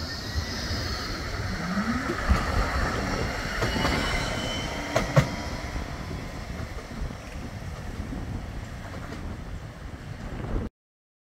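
Bombardier Flexity 2 tram running past on its rails, with the whine of its traction motors rising in pitch as it gathers speed and a high wheel squeal early on. A few sharp clicks from the wheels crossing rail joints come about two and five seconds in, and the sound cuts off suddenly near the end.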